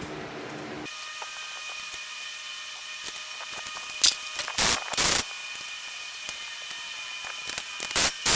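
Tool work on an engine during teardown: a few short rasping bursts about four to five seconds in and again near the end, over the steady hum of a fan running in the background.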